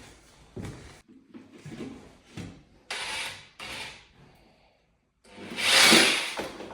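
Scraping and rubbing: a few short rasping strokes, then a longer, louder one near the end.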